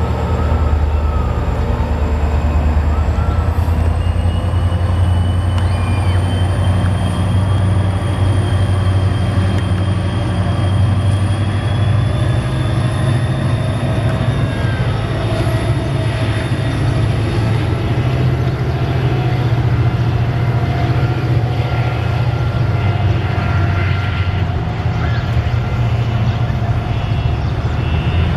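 Train running close by with a steady low rumble and a high whine that rises slowly in pitch, as the train picks up speed.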